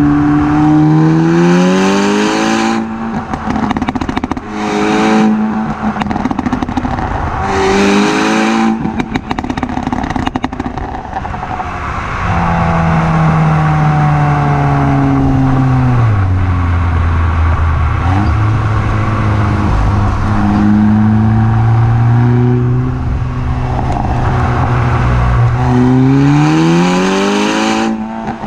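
Exhaust note of a 360 bhp VW Golf R Mk6's turbocharged four-cylinder engine, heard at the tailpipes under way: the revs climb and drop back at gear changes about 3, 5 and 8 seconds in, with brief bursts of noise at each change. The engine note drops about halfway through and holds at a lower pitch, then the revs climb again near the end.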